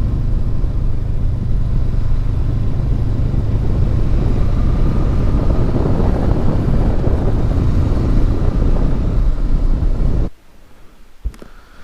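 Riding noise from a Honda CB500X under way: its parallel-twin engine running steadily with a low rumble of wind and road noise. About ten seconds in, the sound stops abruptly to quiet, with a single click near the end.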